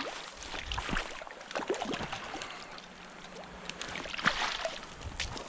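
Irregular splashing and sloshing of stream water with scattered small clicks, as a small hooked trout is played and brought in.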